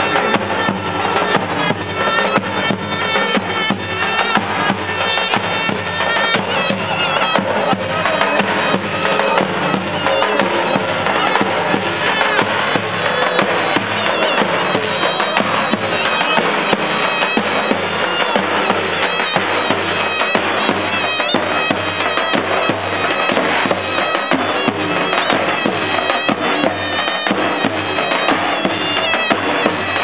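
Davul and zurna playing a Turkish folk tune: a shrill, reedy shawm melody over the beats of a large double-headed bass drum.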